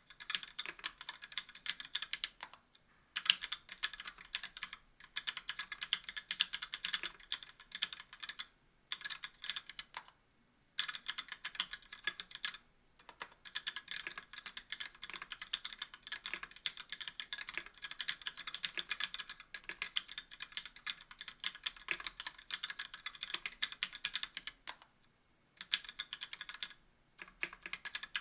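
Typing on a KBDfans Tofu60 aluminum keyboard with stock Gateron Black linear switches, an aluminum plate and GMK keycaps. Rapid keystrokes come in runs, broken by brief pauses several times.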